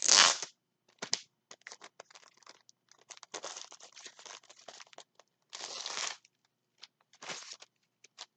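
Packaging being torn open and handled: a short, loud rip right at the start, then on-and-off crinkling and rustling.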